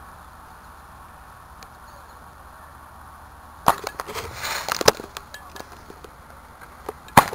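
Consumer fireworks going off: a sharp bang about halfway through, followed by a second or so of hissing and crackling with several smaller pops, then another sharp bang near the end. Before the first bang there is only a faint steady background hiss.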